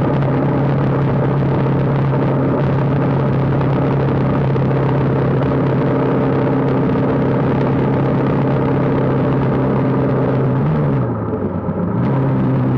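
Motorcycle engine running steadily at cruising speed, heard from on board the bike. Near the end the note dips for about a second as the throttle eases, then picks back up.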